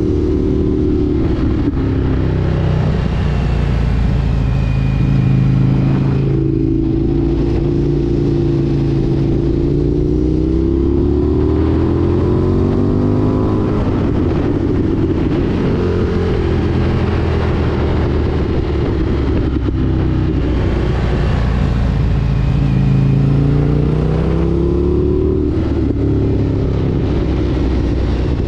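Indian FTR 1200 S's V-twin engine running under way, the revs rising and falling repeatedly with the throttle, with brief drops about six, twenty and twenty-five seconds in where the throttle is closed.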